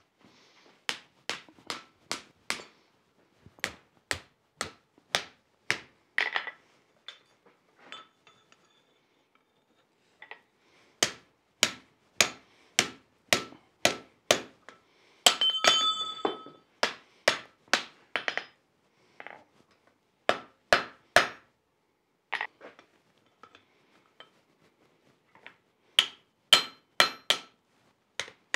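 Hand hammer striking a red-hot 3/8-inch steel strap on the anvil as it is bent into a U-shaped hardy shank: runs of sharp, ringing blows about two a second, broken by short pauses. About fifteen seconds in comes one longer, ringing clang.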